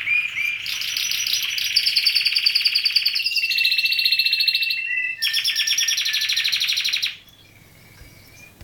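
Canary singing a continuous song of rapid trills, switching several times to a new trill at a different pitch. The song stops abruptly about seven seconds in.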